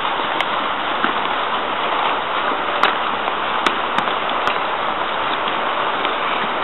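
Steady, even hiss of outdoor noise, with a handful of scattered sharp clicks from a horse's hooves as it walks on.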